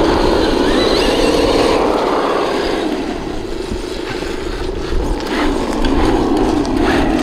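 Traxxas TRX-6 Mercedes-Benz 6x6 RC truck's electric motor and gears whining, rising and falling in pitch as the throttle is worked, over a steady low rumble.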